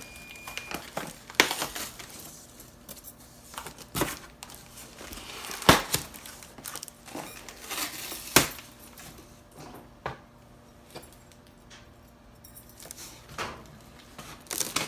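A boxed makeup storage case being handled and pulled at inside its packaging: a series of sharp knocks and clinks, a few seconds apart, over faint rustling.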